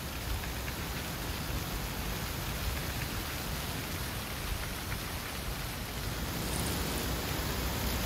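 Dry fallen autumn leaves rustling and skittering over a gravel path in strong wind, with a steady noisy hiss, scattered light ticks and a low, fluctuating rumble of wind. It swells a little near the end.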